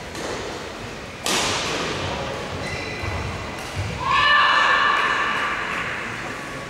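Badminton play in a sports hall: one sharp hit about a second in that echoes through the hall, then a high-pitched squealing tone from about four seconds in that lasts about two seconds.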